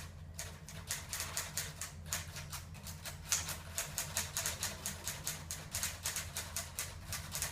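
Typewriter keys clacking in a rapid, uneven run of keystrokes, about six a second.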